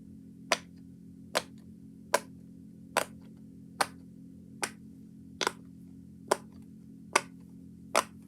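Silicone pop-it fidget toy popped bubble by bubble on its loud side: sharp, evenly spaced pops, a little over one a second. A steady low hum runs underneath.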